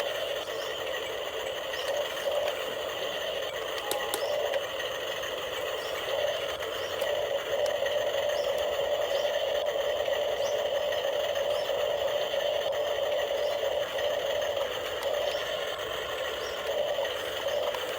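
Small electric motors and gears of a remote-control toy excavator whining steadily, a little louder through the middle stretch, with faint light ticking.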